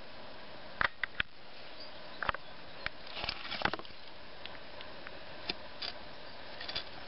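Handheld camcorder's own noise: a steady hiss with a faint hum, broken by scattered clicks and rustles of fingers handling the camera, busiest about three and a half seconds in.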